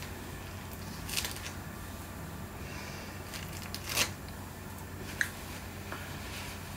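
Hands rubbing and dabbing at a paper art-journal page: soft rustling and brushing, a brief swish a little over a second in, then a sharp click about four seconds in and a short tick about a second later, over a low steady hum.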